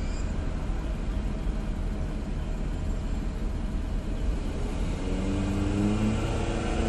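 Steady low rumble of a car heard from inside its cabin. About five seconds in, a low wavering humming joins in over it.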